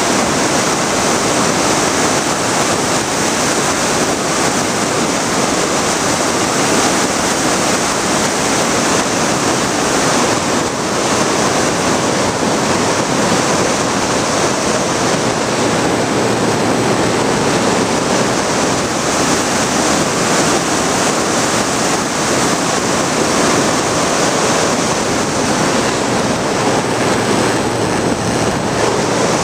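Steady loud rush of airflow over the onboard camera's microphone of a Bixler foam RC plane in flight, mixed with the running noise of its electric motor and propeller.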